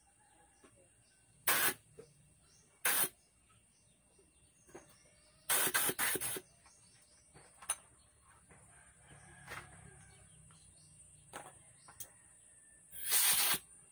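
Compressed air hissing out of a home-made silent air compressor in about four short, loud blasts, with faint bird chirps in the quiet between.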